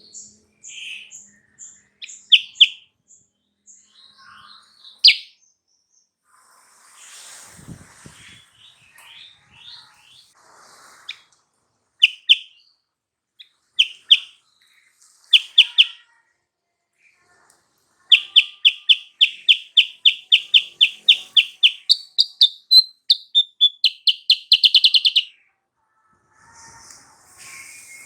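Kutilang sutra bird singing: scattered sharp chirps at first, then about two-thirds through a long, rapid run of evenly repeated chirps, roughly four a second, lasting several seconds.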